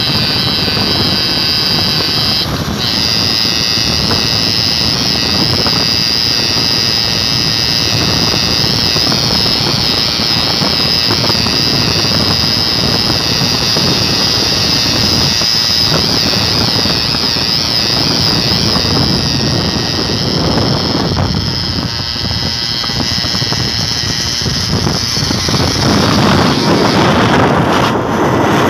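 Auto rickshaw engines racing at full throttle, a steady high-pitched wavering buzz over rushing wind and road noise, louder near the end as one rickshaw runs close alongside.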